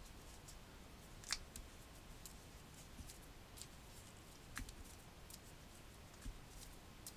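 Faint, irregular keystrokes on a computer keyboard as a name is typed, one louder click about a second and a half in.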